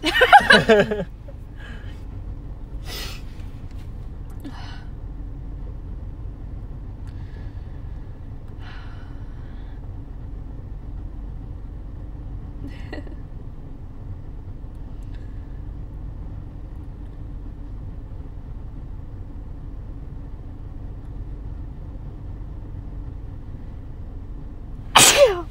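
A woman's uncovered sneeze: a few faint catching breaths over a steady low rumble, then one sharp, loud sneeze just before the end. A brief loud vocal outburst comes at the very start.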